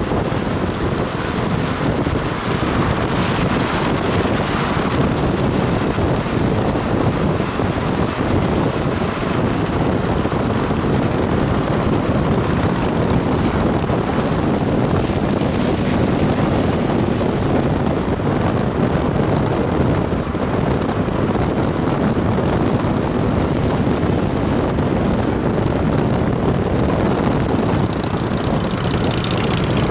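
Steady rush of tyres and wind from a vehicle travelling at motorway speed on a wet road, with the low engine drone of cruiser motorcycles riding alongside.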